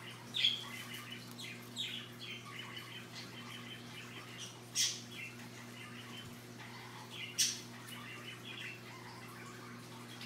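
Scarlet macaw preening, with soft chirps throughout and four short, sharp sounds: about half a second in, near two seconds, near the middle, and about three quarters of the way through.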